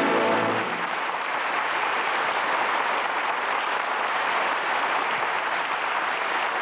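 Studio audience applauding steadily. Under a second in, the last held chord of the music fades out beneath the clapping.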